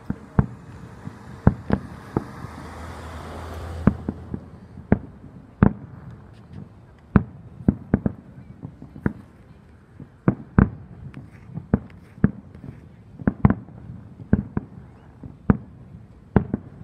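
Aerial fireworks bursting: a string of sharp bangs at irregular spacing, about one or two a second. A hiss grows louder over the first four seconds and stops suddenly.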